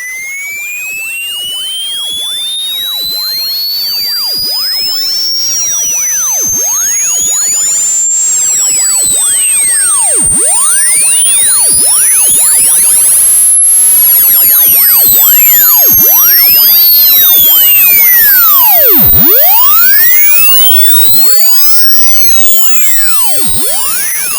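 Synthesized electronic tone sweeping slowly and steadily upward in pitch, from a high whistle to a piercing top near the limit of hearing, with a web of other tones gliding up and down across it. It grows louder as it climbs, then drops in level about 20 seconds in.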